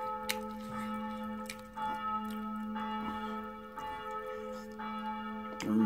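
Ringing bell-like chime tones, a new chime about once a second, with scattered soft clicks and smacks from eating with the fingers.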